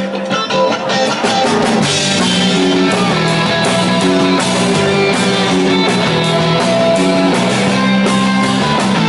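Indie rock band playing live: electric guitars holding sustained notes over a drum kit.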